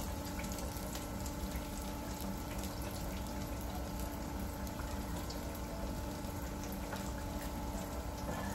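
Breaded pork chop deep-frying in hot oil in an electric deep fryer: steady sizzling and bubbling with small crackles.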